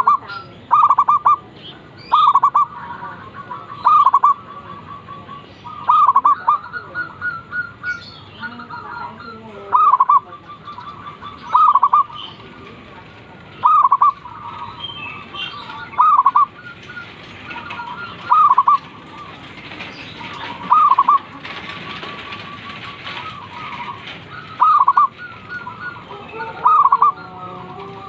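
Zebra dove (perkutut) cooing: a short burst of bubbling coo notes repeated about every two seconds. Fainter chirps from other small birds sound between the bursts.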